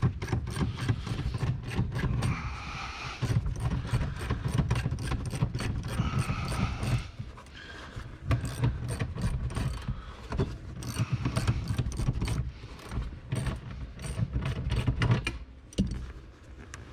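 Hand ratchet clicking in quick runs as the front-seat bolts are worked loose, with metal scraping and knocking from the tools and seat hardware.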